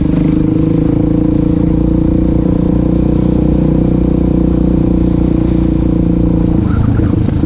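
Suzuki DR-Z400SM supermoto's single-cylinder four-stroke engine running at a steady cruising pitch under the rider, the engine note changing near the end.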